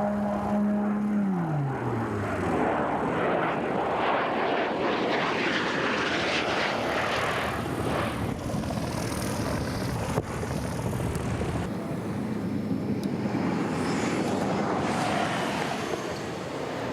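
Piston-engined propeller airplane making a low pass. Its engine tone drops sharply in pitch as it goes by, about a second in, then gives way to a long, rough rush of engine and propeller noise that slowly fades.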